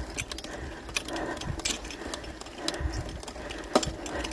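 Bicycle rear derailleur rattling and clacking as the bike rolls over a rough dirt road: irregular light ticks and rattles, with one sharper clack about four seconds in. The rider takes the clacking for the derailleur moving about.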